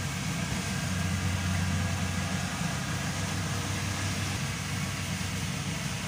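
Kubota rice combine harvester running steadily as it cuts and threshes rice, a constant low engine drone.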